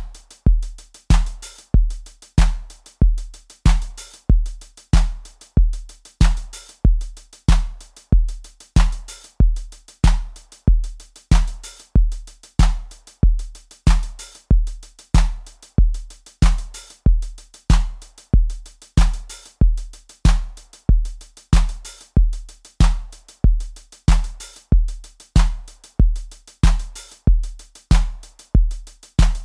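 Drum machine beat as background music: a Roland TR-8 groove in 4/4 at about 94 beats a minute, a kick drum on each beat with lighter hits between.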